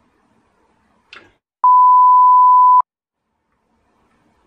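A single steady 1 kHz bleep tone lasting a bit over a second, cut in and out sharply: a censor bleep covering a curse. Just before it comes a brief, faint noisy sound.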